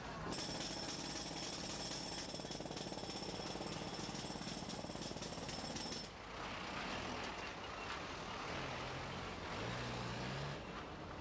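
A machine running with a fast, even rattle and a steady high whine. About six seconds in it changes to a rougher, noisier running sound with a low hum that shifts in pitch.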